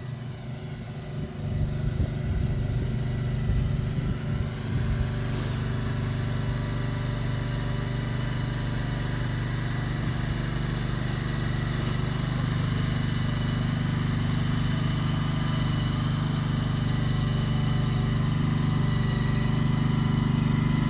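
Engine of the vehicle towing a chicken coop, running steadily and growing slightly louder as it comes closer.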